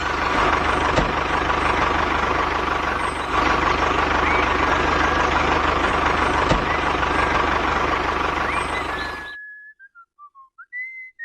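Dense vehicle and machinery noise with a steady tone running through it, cutting off abruptly about nine seconds in. A short whistled phrase follows, wandering up and down in pitch.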